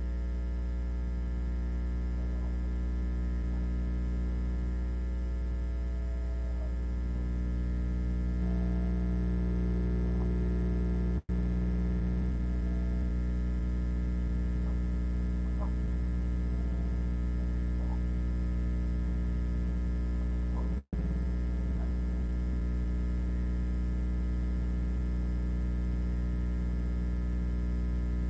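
Steady electrical mains hum with a buzzy stack of overtones, cutting out for an instant twice, about a third and two thirds of the way through.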